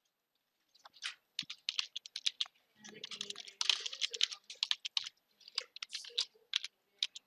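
Computer keyboard being typed on, a quick irregular run of key clicks that starts about a second in.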